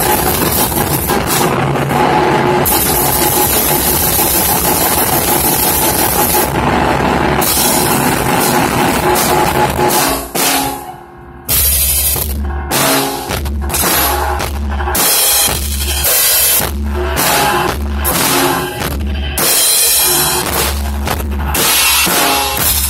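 Harsh noise music: a dense, loud wall of distorted noise for about ten seconds, a brief drop, then stuttering chopped bursts over heavy deep bass pulses.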